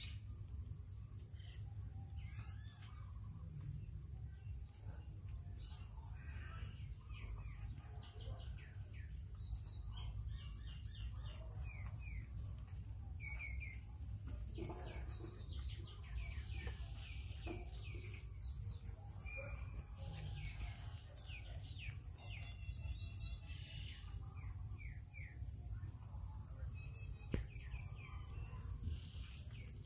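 Birds chirping outdoors in short, repeated calls, over a steady high-pitched hum and a low background rumble. A single sharp click sounds near the end.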